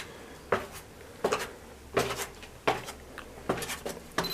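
Footsteps climbing a staircase: a steady series of knocking steps, about three every two seconds.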